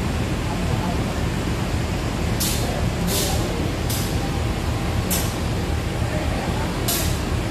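Diesel locomotive idling with a steady low rumble, broken by five short, sharp hisses of air.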